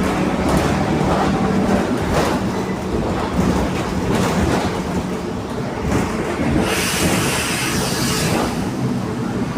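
Mercedes-Benz LO 916 minibus under way, its OM924 four-cylinder diesel and droning (roncando) differential running steadily under a busy rattle of the body. A loud hiss lasts about two seconds, starting about seven seconds in.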